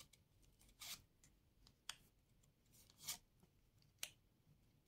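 Near silence with four faint, short swishes about a second apart, typical of playing cards being handled and laid down.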